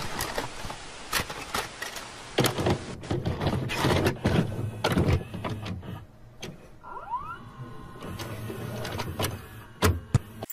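Analogue TV static hiss that fades over the first few seconds, then a VCR's tape mechanism clicking and clunking as a cassette loads and starts to play, with a brief rising motor whine about seven seconds in.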